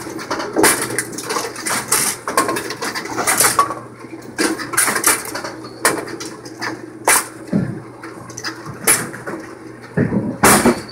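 AMF 82-70 bowling pinsetter running: wooden-and-plastic pins clatter and knock as they are fed along the distributor into the turret, with metal clanks from the mechanism over a steady low hum. The knocks come thick and fast at first, then spaced out, with one loud clank near the end.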